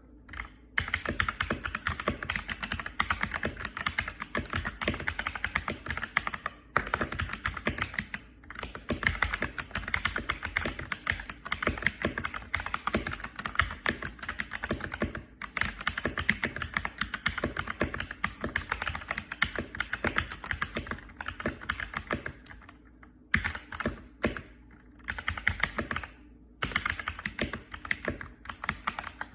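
Fast, moderate-paced typing on a modded mechanical keyboard with Akko Matcha Green switches: dense, continuous keystroke clacking, broken by a few short pauses, the longest about three-quarters of the way through. The board is tape-, coin- and foam-modded with glue-modded keycaps, and no desk mat is under it.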